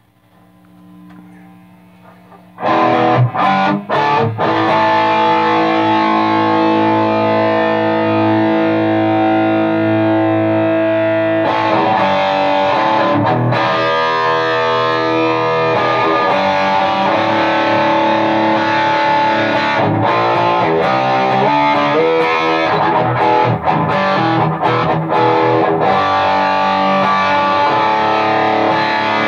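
Electric guitar played through a Demon Tube Screamer overdrive pedal and a delay into the crunch channel of a modified Jet City JCA100H tube amp head: loud, distorted playing that goes on without a break. A low hum sounds for the first couple of seconds, before the playing starts.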